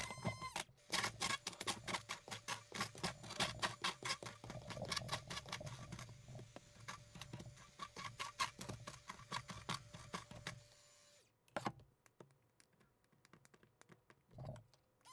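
Gym chalk being crushed and crumbled, a dense run of crisp, crackling crunches that thins out about eleven seconds in to a few scattered crunches.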